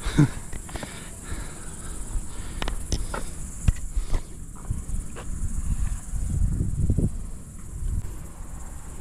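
Insects droning steadily at a high pitch, under low, uneven wind rumble on the microphone and a scatter of short clicks and scuffs.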